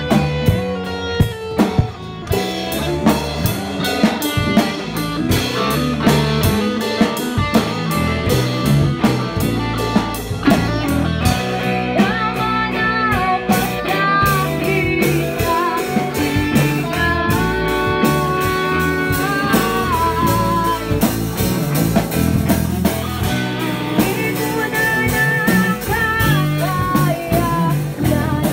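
A rock band playing together: electric guitar carrying a lead line over bass guitar and a drum kit. From about halfway through, the lead holds long notes that waver with vibrato.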